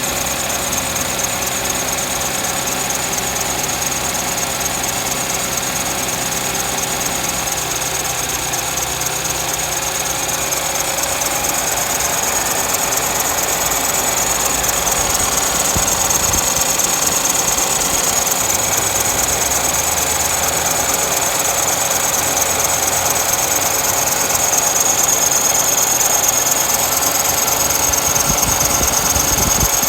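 Audi S4 engine running with a steady high-pitched squeal from its drive belt, an abnormal belt noise, growing slightly louder over the stretch.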